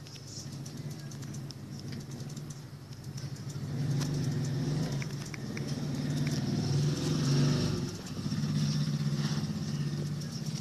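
A steady motor hum with an even, engine-like pitch, growing louder about four seconds in and dipping briefly near the eight-second mark before picking up again.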